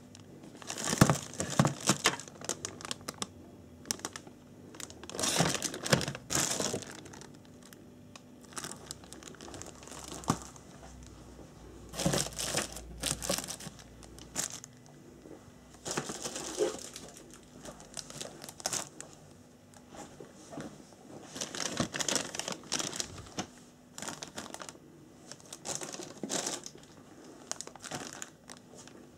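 Clear plastic parts bags from an RC model kit being handled and crinkled, in irregular bursts of rustling a second or two long with short pauses between.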